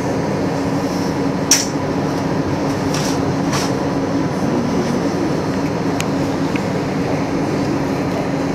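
Running noise inside an AnsaldoBreda Sirio tram in motion: steady wheel-and-rail rumble with a constant low hum from the tram's equipment. A sharp click sounds about one and a half seconds in, followed by a few fainter clicks.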